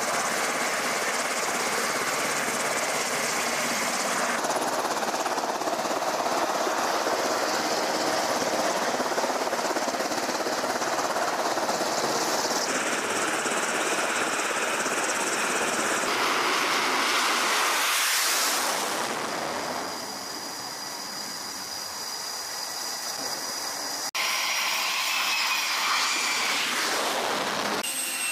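Carrier flight-deck noise: a steady rushing din of jet engines and wind that shifts in character at each of several cuts. In the last few seconds a jet engine's whine comes through with thin, steady high tones.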